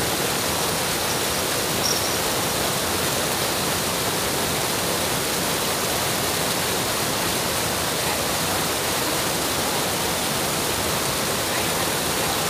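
Steady, even rushing noise with no breaks or changes in level.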